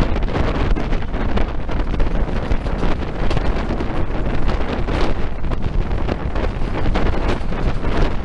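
Wind buffeting hard on a microphone held out of a moving train's window, a loud, irregular rumble over the train's running noise.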